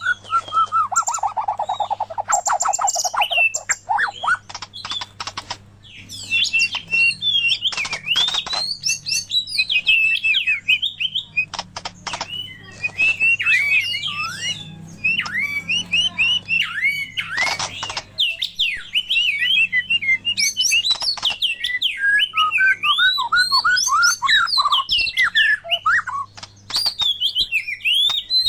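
White-rumped shama and oriental magpie-robin singing: a dense, varied stream of quick whistles and chirps mixed with sharp harsh notes. About a second in there is a long falling run of rapid notes.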